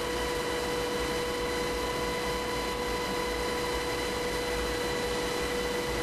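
HH-60G Pave Hawk helicopter in flight, heard from inside the cabin: a steady rushing noise with a low rumble and a steady whine of several high tones.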